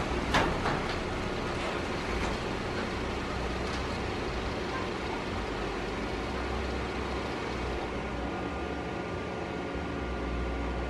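Steady mechanical running of a garage door opener raising the overhead door, with an SUV idling in the driveway; a sharp knock just after the start, and the high hiss thins out about eight seconds in.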